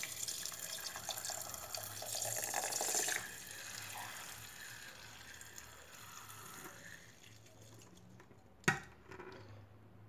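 Fruit smoothie being poured into a mesh strainer and worked through it with a spatula, straining it to check for unblended pieces: liquid splashing and draining for about three seconds, then fading. One sharp knock near the end.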